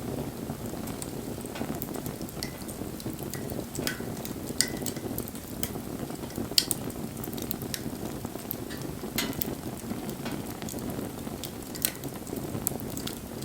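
Wood fire burning: a steady low rush of flame with irregular sharp crackles and pops, two of them louder, about four and a half and six and a half seconds in.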